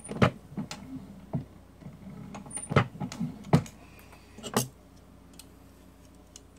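Sharp clicks and knocks of a cartridge and metal reloading tools being handled at a single-stage reloading press during bullet seating. There are six or so loud ones among smaller taps, and they stop after about four and a half seconds.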